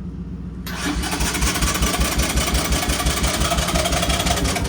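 Three-wheeler ATV's engine being cranked by its electric starter with the choke out on a cold start, beginning about a second in: an uneven chugging at about four pulses a second that does not catch and run.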